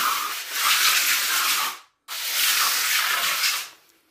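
A hand trowel drawn over fresh concrete in two long scraping strokes, smoothing the surface; the second stroke begins about two seconds in.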